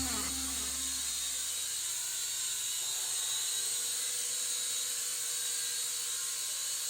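FreeX MCFX-01 quadcopter's electric motors and propellers running steadily, with a high whine.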